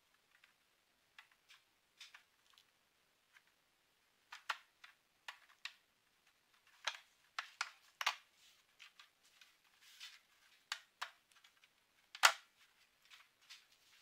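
Scattered clicks, taps and small knocks of a projector's casing and internal parts being handled and fitted by hand, coming more often after a few seconds, with one sharp, louder knock near the end.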